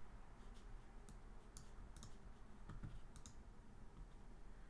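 Faint computer mouse clicks, about seven of them, scattered unevenly against near-silent room tone.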